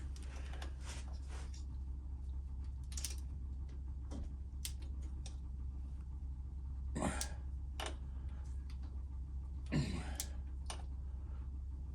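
Hand tools working a bolt in a Harley Twin Cam 96 cam chest: scattered metal clicks and clinks, with two brief scraping noises about seven and ten seconds in, over a steady low hum. The bottom sprocket bolt is being torqued to 24 ft-lb.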